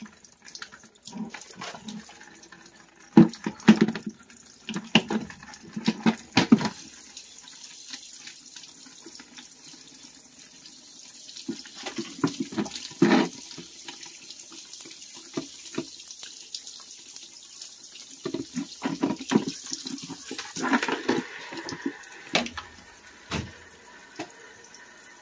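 Water pouring out of an opened main water line into a plastic bucket, a steady splashing run as the line drains under its remaining pressure. Scattered knocks and clunks sound over it, several in the first seven seconds, a few around the middle and a cluster near the end.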